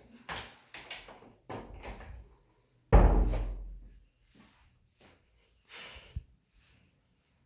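A door being handled and shut: rattling and scraping noises, then a loud bang about three seconds in that rings on for about a second, and a short knock near the end.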